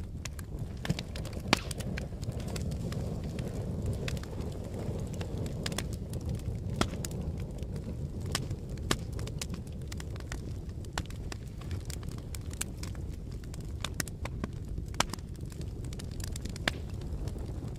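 Wood fire burning with a steady low roar of flames and frequent sharp crackles and pops.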